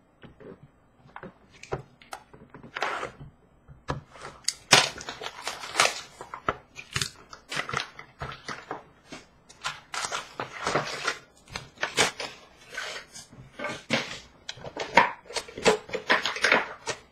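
Trading-card pack wrappers being torn open and crinkled by hand: a run of irregular crackles and rustles, sparse at first and busier from a few seconds in.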